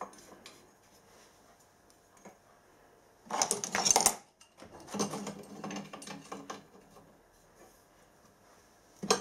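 Metal clinks and rattles of a copper pipe with a brass compression nut and olive being handled and fitted to a steam engine's exhaust fitting. A louder clatter comes about three and a half seconds in, more scattered handling follows, and a sharp click comes near the end.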